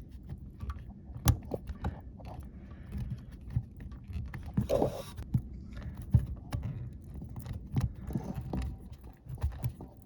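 Irregular small clicks, taps and scrapes of hand work as a worm-drive hose clamp on a dishwasher hose is tightened with a stubby screwdriver, with one sharper click about a second in.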